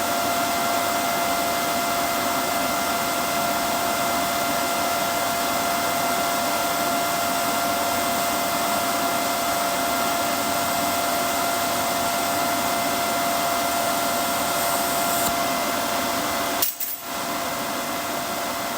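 TIG welding arc on steel pipe, a steady hiss with a constant whining tone from the Miller Maxstar welder. The arc's hiss cuts off a little past halfway through the last quarter, leaving a quieter steady machine noise.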